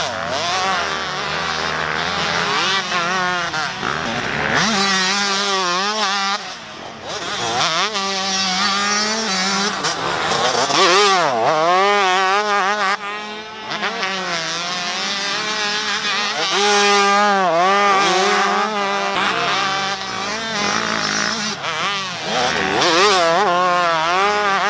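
Two-stroke motocross dirt bike engines revving hard, the pitch climbing and dropping again and again as the bikes are ridden around the track.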